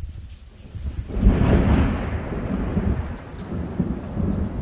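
A thunderclap about a second in: a sudden crack that rolls into a rumble and fades over a couple of seconds. Rain and a low rumble run beneath it.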